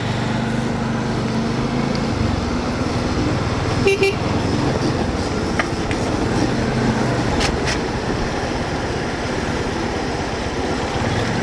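Bajaj Dominar 400's single-cylinder engine running at low speed among slow-moving heavy trucks, with steady traffic noise. A short horn toot sounds about four seconds in.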